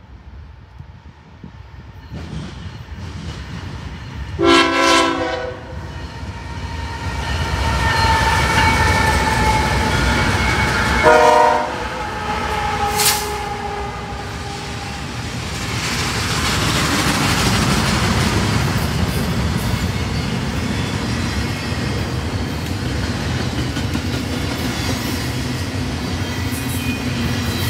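Diesel freight locomotive horn sounding as the train approaches, loudest in two short blasts about four and eleven seconds in. These are followed by the steady rumble and clatter of double-stack container cars rolling past on the rails.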